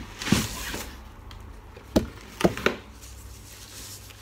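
A cardboard box and its packaging being handled on a table: a scraping rustle of cardboard, then, about two seconds in, three sharp knocks in quick succession as items are set down.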